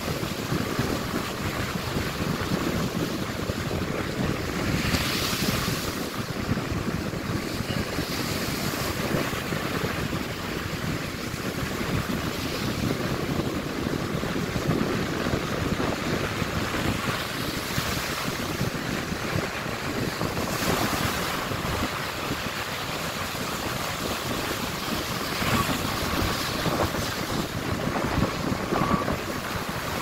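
Rough ocean surf breaking on the beach: a steady wash of waves with several louder breaks, and wind buffeting the microphone.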